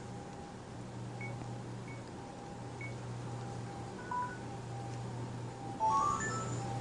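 Faint short electronic tones from the Samsung YP-S5 MP3 player's built-in speaker, scattered and sparse, then a quick rising run of notes about six seconds in, as an alarm sound plays. A steady low hum sits underneath.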